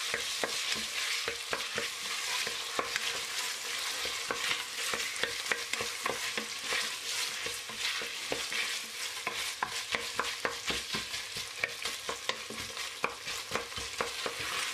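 Diced potato, onion and carrot with tomato and pepper paste sizzling in oil in a stainless steel pot over medium heat. A spoon stirs them, scraping and clicking against the pot again and again, as the paste is fried off.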